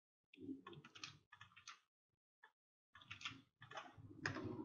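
Faint clicking of computer keyboard keys being typed, in two short runs with a pause of about a second in the middle.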